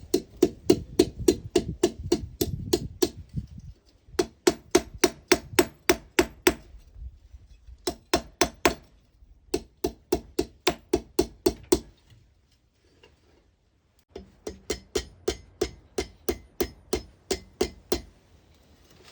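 Hammer blows forging an iron rod into a hook knife: runs of ringing metal strikes, about three to four a second, broken by several short pauses.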